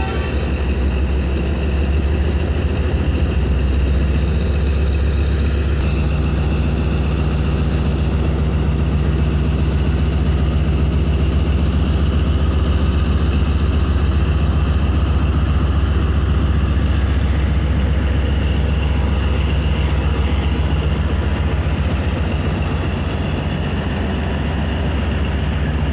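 ZCU-30 diesel-electric locomotive's engine running with a steady, loud low drone as it hauls the train out of the station, passing close by.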